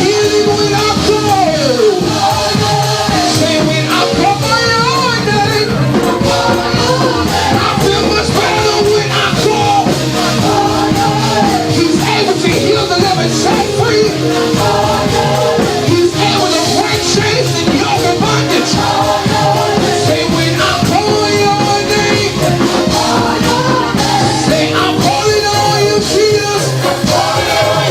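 Gospel praise-and-worship music with singing, played live in a church service.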